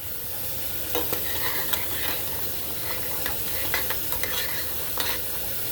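A pot of ginger, garlic and lime water on the stove, with a steady sizzling, bubbling hiss and a few light clicks and taps.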